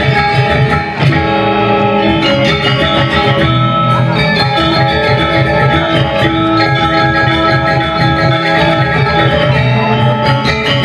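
Balinese gamelan gong kebyar orchestra playing: bronze metallophones struck in dense, fast patterns over a sustained low tone, loud and continuous.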